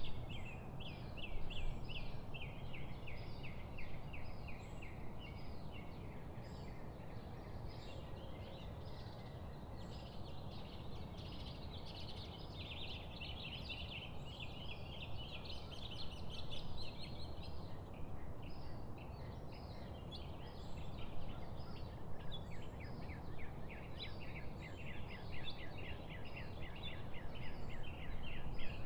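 Many small birds chirping and chattering in fast runs of short notes, over a steady low background rumble.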